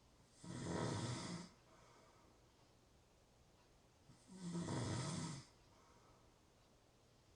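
A person snoring: two snores about four seconds apart, each lasting about a second, with faint breathing between them.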